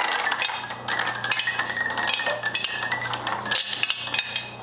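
Motor-driven conveyor lift running with metal bracket shelves riveted to its belt: a steady low hum under a rapid, irregular clatter of metallic clicks and clinks.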